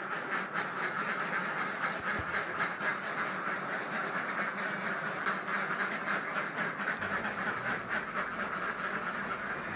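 Many ducks quacking at once: a dense, continuous chorus of rapid, overlapping calls.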